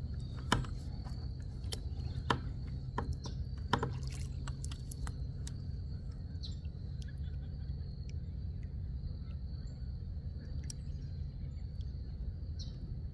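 Insects trilling: one steady, high, unbroken tone over a low steady rumble, with a few sharp clicks in the first four seconds.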